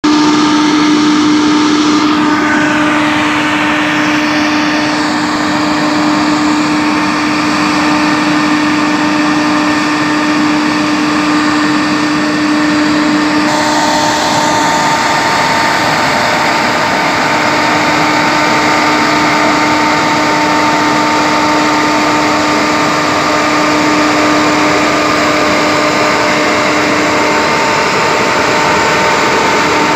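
Truck-mounted air-blast pesticide sprayer running at full blast. Its fan drives the mist out in a loud, steady rush with a constant hum and whine, over the truck's engine. The tone shifts a little about halfway through.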